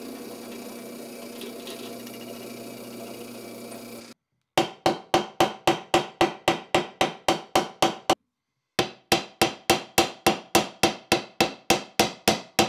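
A drill press motor runs steadily for about four seconds and cuts off abruptly. Then a ball-peen hammer strikes rapidly on a small steel anvil, about four strikes a second with one brief pause, each strike ringing briefly, peening the rivets that fix the steel straps to the wooden axe handle.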